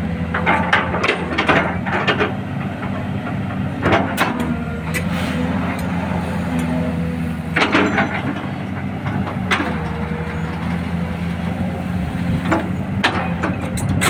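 XCMG XE215C crawler excavator's diesel engine running steadily under a constant whine, while the bucket works a gravel pile: several sharp knocks and rattles of stone against steel, a cluster near the start and more around the middle and near the end.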